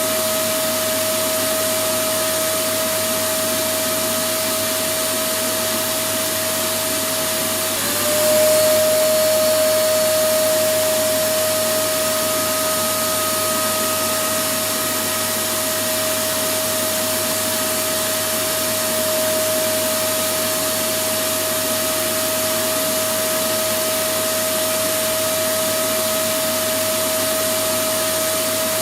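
Electric vacuum cleaner motor running continuously, a steady rushing noise with a constant whine. About eight seconds in, the whine dips briefly in pitch and the sound swells a little louder before settling back.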